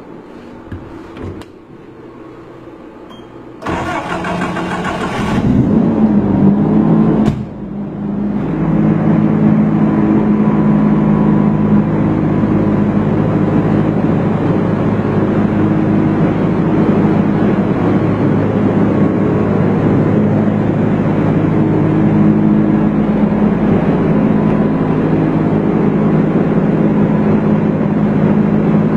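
A 15 kVA gas generator's Toyota 3S 2.0-litre four-cylinder engine is cranked by its starter for about two seconds, catches and revs up, then settles after a brief dip into a steady, even run. A couple of faint clicks come before the cranking.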